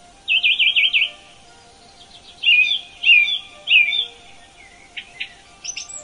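Songbirds singing: a quick trill of rising-and-falling notes, then three loud slurred whistled phrases about two seconds in, and a few faint chips near the end.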